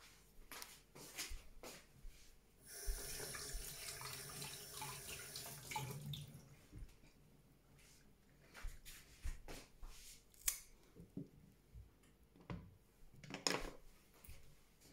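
Kitchen tap running for about three seconds as a ginger root is rinsed under it before peeling, followed by scattered light clicks and knocks of handling.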